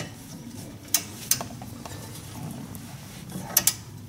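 Torque wrench and socket on the wheel-bearing hub bolts as they are tightened: a few sharp metallic clicks and clinks, one at the start, two about a second in and a close pair near the end.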